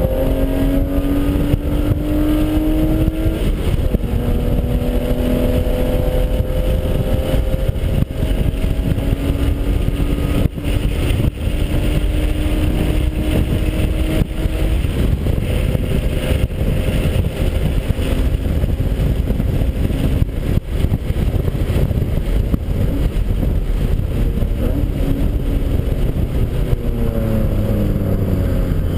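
BMW E36 race car's engine pulling hard from inside the cabin, its pitch climbing steadily, dropping once for an upshift about three and a half seconds in, then climbing on a long pull. Near the end the pitch falls as the car slows. Heavy road and wind noise throughout.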